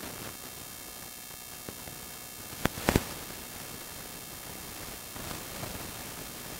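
Steady static hiss with a faint electrical hum, broken by two sharp pops close together a little under halfway through.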